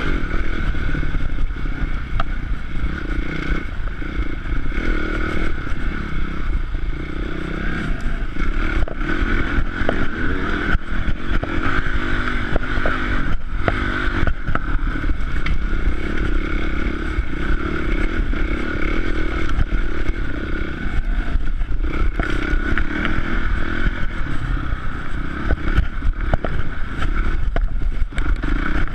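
Enduro dirt bike engine running under load as it is ridden, the revs shifting up and down, with frequent knocks and clatter from the bike jolting over rough ground.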